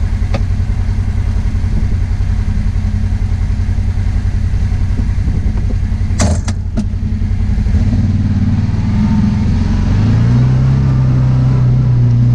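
Kawasaki Teryx side-by-side engine idling with a low, even pulse, heard from the driver's seat. A couple of sharp clicks come about six seconds in. From about eight seconds the engine picks up and settles into a steadier, higher drone as the machine pulls away.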